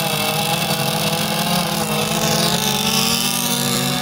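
Small two-stroke gas engines of 1/6-scale RC race boats running steadily, with a higher engine whine that dips and rises again around the middle.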